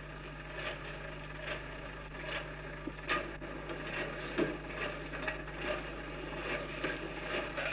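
Steady low electrical hum and hiss with soft clicks recurring about once a second.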